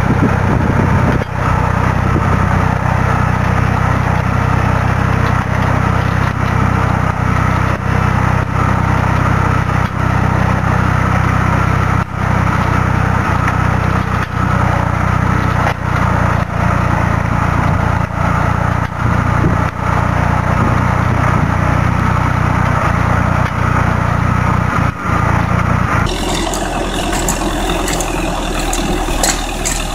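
Vineyard tractor engine running steadily as it pulls a mounted cultivator and under-vine tiller through the rows. About 26 seconds in, the sound switches abruptly to a different tractor engine, lower and rougher.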